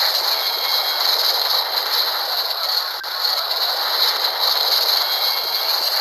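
Continuous mechanical rattling from an old Warner Bros. sound-effects recording. It is steady and dense, starting and stopping abruptly as a separate effect.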